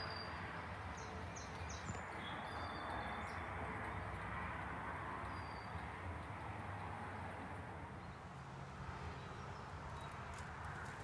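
Steady outdoor background noise with a low hum, with faint, brief songbird chirps in the first few seconds and once more around the middle. A few light taps come near the end.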